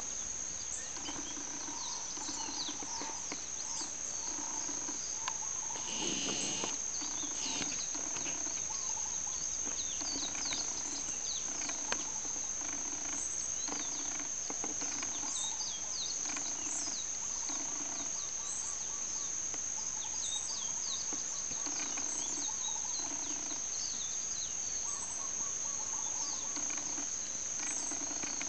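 A steady high-pitched insect trill runs through the whole clip. Under it, chickens give short, soft, low clucks about once a second, and small birds chirp briefly here and there. About six seconds in there is one brief, louder sound.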